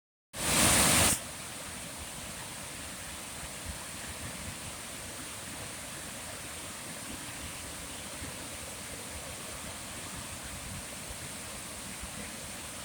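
Steady rushing outdoor nature ambience with a thin high hiss above it, opened by a loud, brief burst of noise at the very start.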